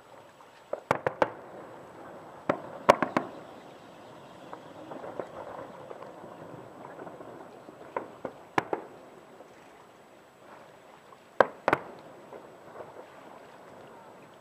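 Fireworks display: aerial shells bursting in a string of sharp bangs, several coming in quick pairs, with crackling between them. The loudest bangs come about three seconds in and again about eleven seconds in.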